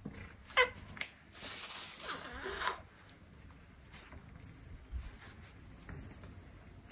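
Domestic cat gives one short falling cry, then hisses for about a second and a half: a defensive warning at a hand poking its belly.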